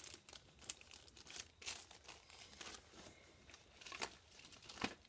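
Packets of craft supplies crinkling and rustling as they are handled, in quiet irregular bursts.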